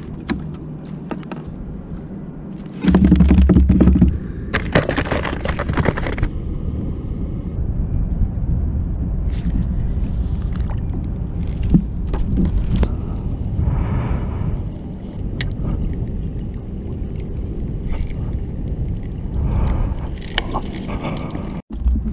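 Wind rumbling on the microphone, with scattered knocks and scrapes of fishing tackle being handled; a louder gust hits about three seconds in, then a hissing burst follows.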